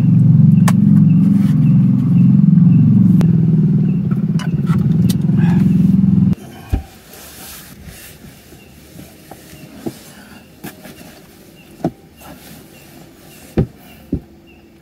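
A loud low drone that cuts off suddenly about six seconds in. After it, blankets rustle and a few soft knocks sound as a person settles down to sleep on a tent floor, over faint, evenly repeating insect chirps.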